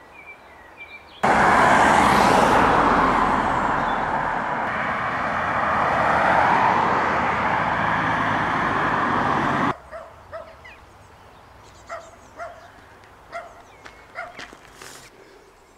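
Road traffic going past: a loud, steady rush of cars on the road that starts and stops abruptly, swelling and easing as vehicles pass.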